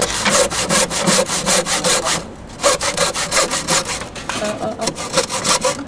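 Handsaw cutting timber: quick, even back-and-forth strokes in two runs, with a short pause about two seconds in.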